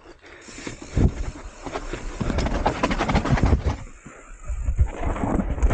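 Hardtail mountain bike rattling and knocking down a rocky trail section, tyres striking stone and the frame and drivetrain clattering. There is a brief lull about four seconds in, then the knocks pick up again.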